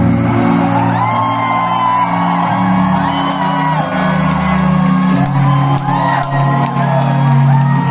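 Live pop concert music playing loud over the sound system, with the crowd whooping and shouting along.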